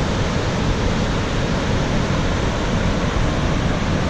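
Steady rush of water from a waterfall and creek: a loud, even wash of noise with no breaks.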